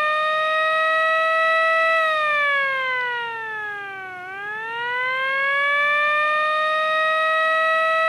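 Miniature STH-10 electromechanical siren sounding a strong, harmonic-rich tone. It holds at top pitch, winds down about two seconds in, then winds back up to top pitch about two seconds later and holds there.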